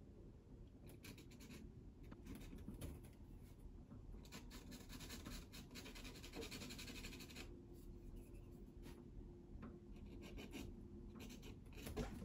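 Graphite mechanical pencil scratching faintly in short strokes on sanded pastel paper, with a denser run of scratching about four to seven seconds in.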